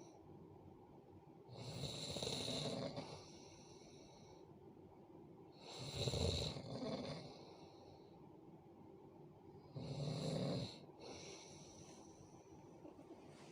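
A person snoring in sleep: three snores about four seconds apart, with quieter breathing in between.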